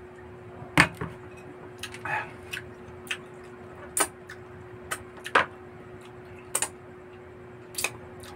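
Close-up eating sounds: scattered wet lip smacks and finger-licking clicks while chewing, with a sharper knock about a second in, over a faint steady hum.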